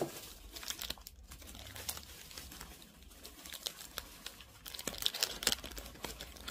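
Snack wrapper being crinkled and torn open by hand, an irregular run of crackles that thickens near the end.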